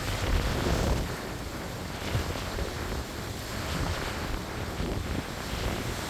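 Strong coastal wind buffeting the microphone with an uneven low rumble, over the wash of surf breaking on the rocks below. A gust swells about half a second in.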